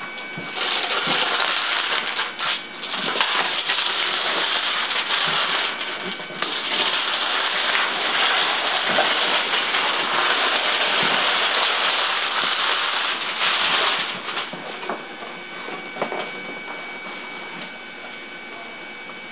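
Cardboard box being cut and torn open, a long stretch of scraping, ripping cardboard and packing noise that turns quieter for the last few seconds.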